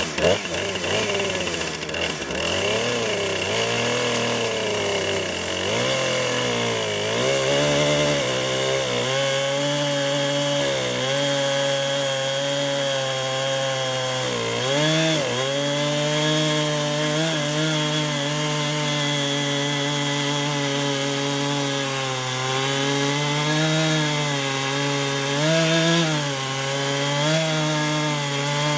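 Husqvarna 455 Rancher two-stroke chainsaw running at high revs in a chainsaw mill, ripping lengthwise through a log. The engine note holds steady but wavers and dips briefly now and then as the bar takes load, most noticeably in the first several seconds.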